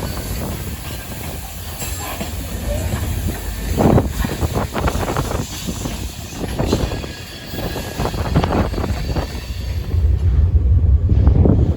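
Freight train cars rolling past, steel wheels clicking and knocking over the rail joints with a low rumble and faint wheel squeal.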